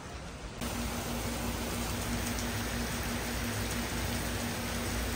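Rain falling steadily on dense trees, coming in suddenly about half a second in, with a steady low hum underneath.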